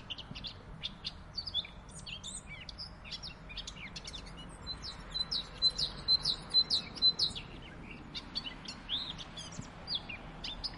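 Small birds chirping in a busy, overlapping chorus of short high calls, with a quick run of repeated high notes, the loudest part, about halfway through.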